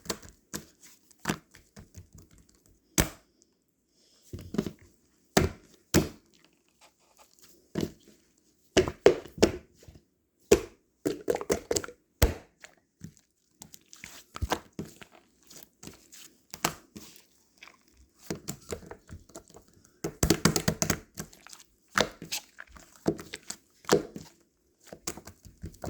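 Close-miked handling of a blueberry pudding: irregular clicks, taps and short sticky, squishing crackles, coming in bunches with brief pauses.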